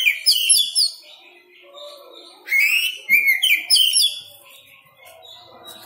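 Caged songbird singing: two bursts of rapid, high chirps and sweeping whistled notes, one at the start and another about two and a half seconds in.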